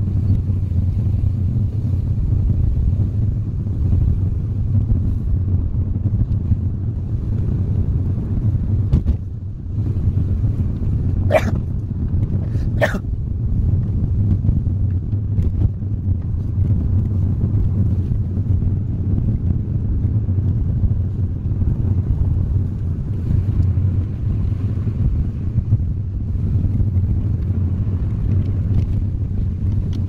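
Light car driving, heard from inside the cabin: a steady low rumble of engine and road noise. Near the middle come two brief sharp clicks, about a second and a half apart.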